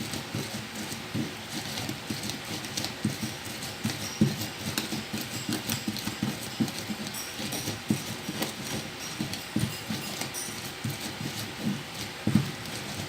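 Pestle pounding a spice paste of shallots, garlic, coriander and chilies in a small cowek (mortar): a run of dull, uneven knocks a few times a second, with a louder knock about four seconds in and another near the end.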